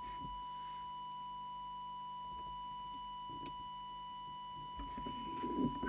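Steady, unwavering test tone from a small audio oscillator held at one high pitch. It modulates the CB transmitter while the FM deviation is being set.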